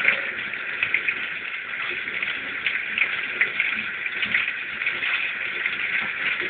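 Kitchen tap running into a stainless steel sink, the stream splashing over a rainbow trout held and rinsed under it: a steady hiss with small irregular splashes.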